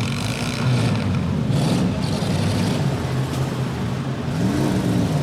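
Engines of several bone stock demolition derby cars running and revving, their pitch rising and falling; one glides up and back down near the end.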